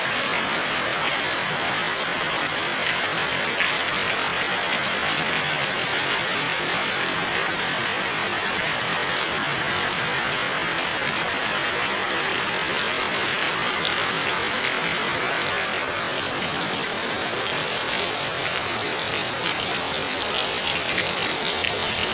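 Heavy rain falling steadily on concrete paving, road and garden foliage: an even hiss that keeps up without a break.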